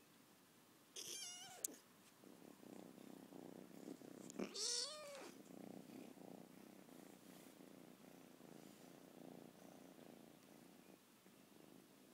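A 14-week-old lilac British Shorthair kitten purring steadily, with two short meows, about one second in and about four and a half seconds in, as it asks to be petted.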